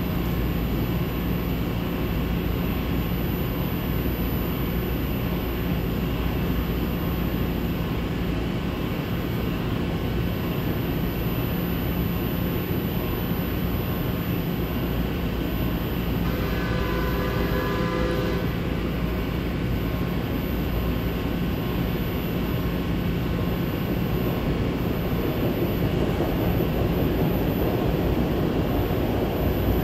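SEPTA Market–Frankford Line train standing at a platform with its doors open, its equipment humming steadily under a hiss. A brief pitched tone sounds about two-thirds of the way through, and the sound grows a little louder near the end.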